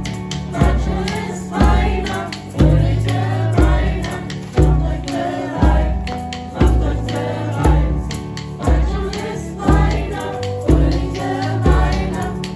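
A group of voices singing a song together over a steady low beat, about one beat a second.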